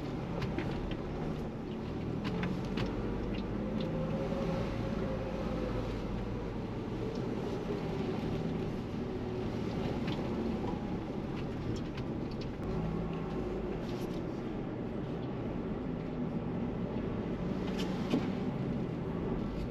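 Ford Bronco running at low speed over a rocky trail, its engine a steady low rumble with scattered light clinks and clanks from the truck bouncing over rocks and obstacles.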